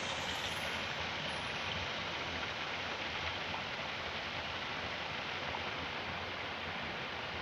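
Small trickle of water falling over a rock ledge into a shallow pool, splashing steadily.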